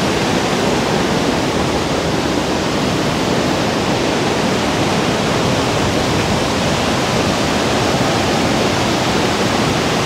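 Galboda waterfall, about 30 m high, pouring down in full, forceful flow. It makes a loud, even rush of falling water with no breaks.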